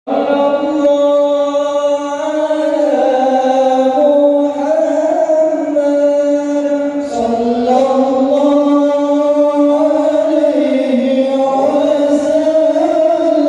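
A group of men singing sholawat together, a devotional chant of blessings on the Prophet Muhammad, sung into microphones. The notes are long and glide from one pitch to the next.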